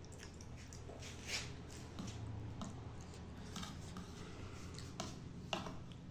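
Close-up eating sounds of spicy instant noodles: wet slurps and chewing, with a fork stirring through the noodles and a couple of sharp clicks near the end. A low steady hum sits underneath.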